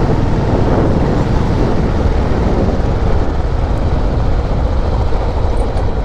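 Motorcycle riding on a wet road: steady engine drone and tyre hiss, with wind buffeting the microphone.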